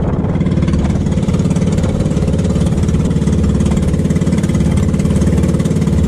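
Small inboard engine of a motorized outrigger banca running steadily at constant speed, its firing pulses even throughout, over the rush and splash of choppy water against the hull.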